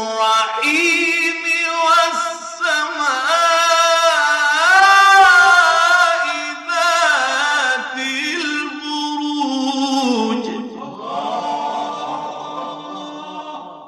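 A man's voice chanting Quran recitation in long, drawn-out melodic phrases, holding notes that slide up and down in ornamented melisma. It grows loudest in the middle and falls softer in the last few seconds.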